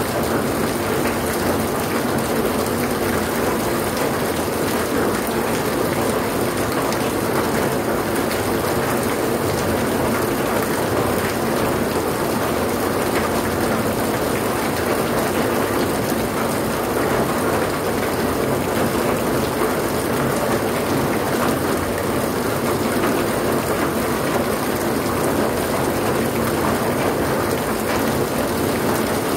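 Rain falling steadily, a constant even hiss that neither builds nor eases.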